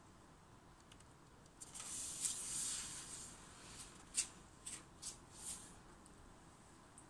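Faint rustling hiss for about a second and a half, then four short scraping rustles.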